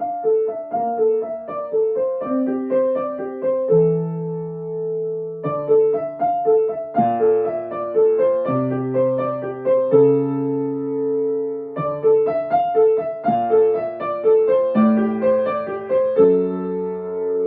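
Solo piano playing a gentle piece: a flowing figure of repeated notes over bass notes, settling on a held chord about every six seconds.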